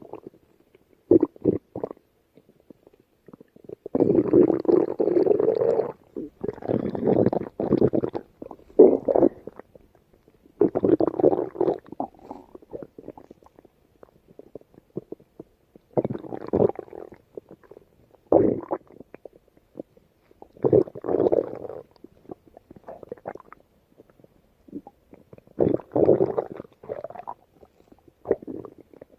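Stomach growling and gurgling in irregular bouts, some brief and some lasting a couple of seconds, with short quiet pauses between them.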